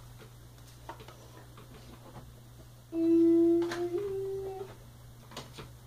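A boy humming a short thoughtful 'hmm', one held note that steps up slightly to a second note, about three seconds in. A few faint clicks and a steady low electrical hum lie underneath.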